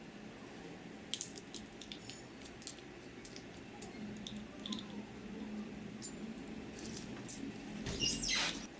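Small parts being handled at a workbench: scattered light clicks and taps, then a short, louder scraping rush near the end.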